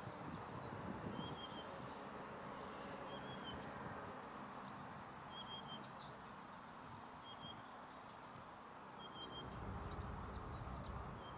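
Faint birdsong: a short, even call repeating about every two seconds, with small high chirps between, over a low steady background rumble.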